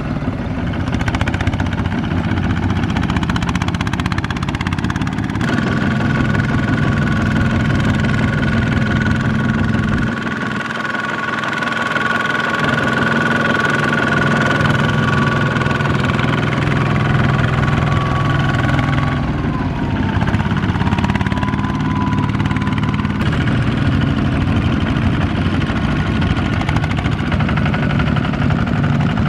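Kubota single-cylinder diesel engine of a two-wheel walking tractor running steadily under load as it drives through a muddy rice field pulling a trailer. A thin, high steady whine sits over the engine for much of the time and dips in pitch about twenty seconds in.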